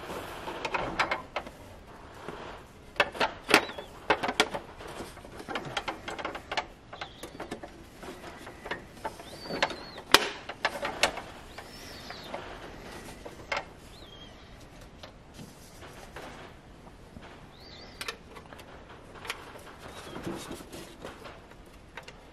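Irregular light clicks and taps of hard objects being handled, loudest about three and ten seconds in, with a few faint bird chirps.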